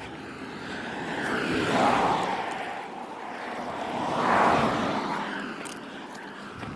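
Two cars passing one after the other on a nearby road, each tyre-and-engine hiss swelling and then fading, about two and a half seconds apart.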